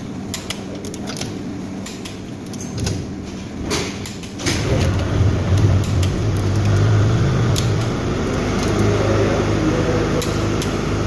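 A torque wrench ratchets and clicks on cylinder-head bolts. About four seconds in, a louder steady low motor hum starts up and keeps running, drowning out the wrench.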